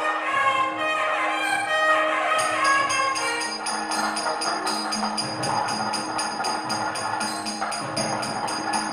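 Temple aarathi music: a wavering melody line over a steady drone for the first few seconds, then a brass temple bell rung rapidly, about four strikes a second, from around two seconds in.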